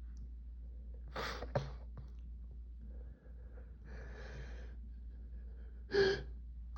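A person's sniffling and heavy breathing while allergy-tickled: two quick sniffs about a second in, a long breath in the middle, and a short sharp gasp near the end as the nose tickle builds toward a sneeze.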